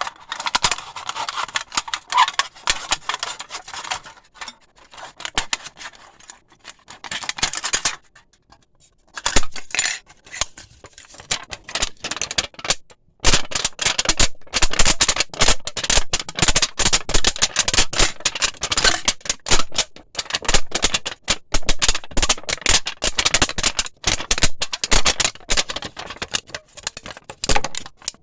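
Razor blade cutting and scraping through thin aluminium pop cans: dense, scratchy crackling and clicking, pausing briefly about eight seconds in and again around thirteen seconds.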